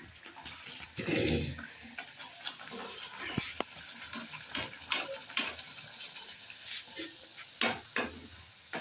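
A puri deep-frying in hot oil in an aluminium kadai, sizzling and bubbling. A metal spoon scrapes and taps against the pan as it presses the puri down, with a louder knock about a second in.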